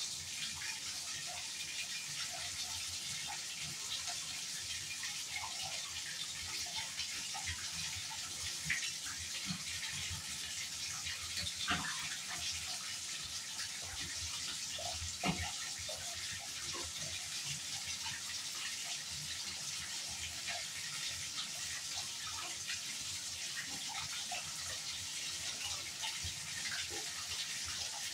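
Water running steadily into a bathtub, with bare feet stepping in slime and water: small wet squelches throughout and a couple of sharper splats about twelve and fifteen seconds in.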